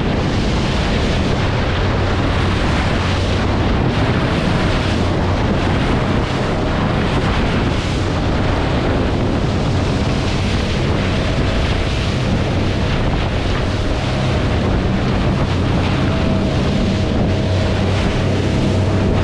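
Sailfish center-console boat running at speed: a steady engine drone under heavy wind buffeting on the microphone and the rush of spray off the hull. A faint high whine comes and goes through the second half.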